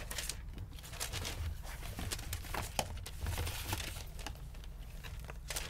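Packaging being handled and crinkled while a wig is taken out: scattered rustles and small clicks over a steady low hum.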